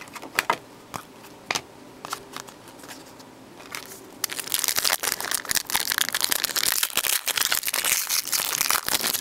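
A trading-card pack's wrapper being torn open and crinkled: a few light clicks at first, then from about four seconds in a dense, loud crackling of the wrapper.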